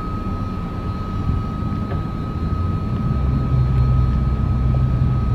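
Yamaha outboard engines on a Sea Fox 288 Commander center-console boat running, a low rumble that grows louder about three seconds in as the engines take more throttle, with a thin steady high tone throughout.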